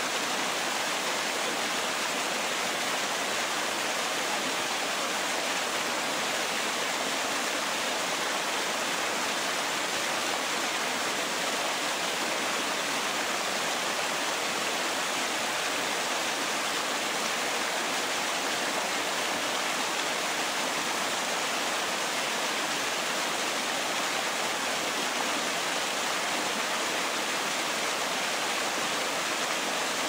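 Small waterfall on a rocky mountain creek, water pouring over boulders into a pool with a steady, even rush.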